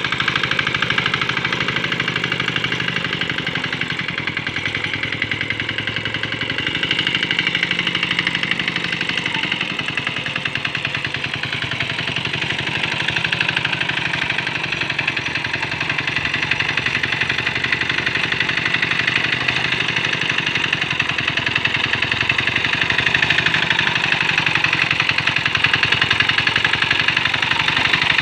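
Small diesel engine of a Quick Capung Metal hand tractor running steadily, a rapid even chug with slight swells in level.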